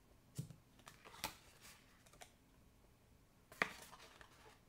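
Cardstock box and a craft tool handled on a work mat: a few soft clicks and taps, three sharper ones about half a second, a second and a quarter and three and a half seconds in, the last followed by a brief papery rustle as the box is folded.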